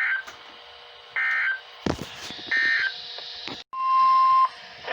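Emergency Alert System data bursts on NOAA Weather Radio: three short warbling digital header bursts about a second and a half apart, then a brief steady 1050 Hz alert tone, over radio hiss. Together they mark the start of a severe thunderstorm warning broadcast.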